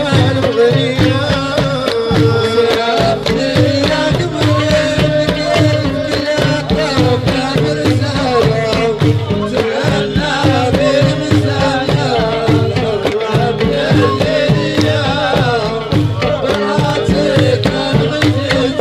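Live Chellali folk music from Adrar: hand-held frame drums beating a steady, repeating rhythm, a lute, and men singing.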